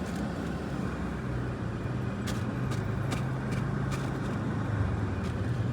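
A vehicle engine running steadily, its pitch rising a little about a second in, then cutting off abruptly at the end.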